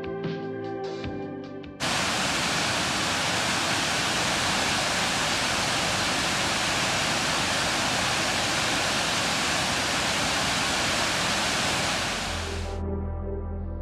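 Lucifer Falls, a tall cascading waterfall, rushing: a steady, full hiss of falling water that comes in suddenly about two seconds in and cuts off abruptly near the end. Soft background music plays before and after it.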